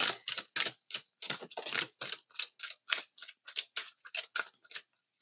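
A deck of oracle cards being shuffled by hand: a quick, uneven run of card slaps and clicks, about five a second.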